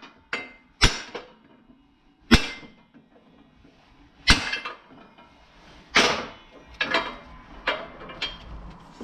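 A heavy hammer strikes a socket on a 2014 Ford Fiesta front wheel hub seated in a shop press, metal on metal, driving the hub out of the wheel bearing. The blows come about every one and a half to two seconds, then faster near the end, each a sharp clank with a short ring; the hub has not yet come free.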